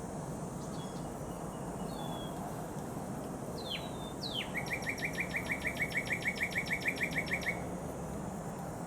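A songbird calling outdoors: a few short falling chirps, then a fast, even trill of about seven notes a second lasting about three seconds, over a steady low background hum.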